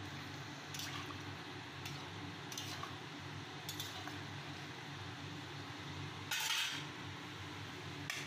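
Metal spatula clinking and scraping against a metal cooking pan while stirring a vegetable and lentil-dumpling curry: a few sharp clinks, then one longer, louder scrape about six seconds in, over a steady low hum.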